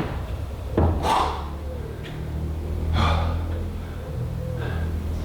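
A man breathing hard with effort, two heavy breaths about a second and three seconds in, while he wrestles a heavy sunroof assembly into place, over a low steady hum.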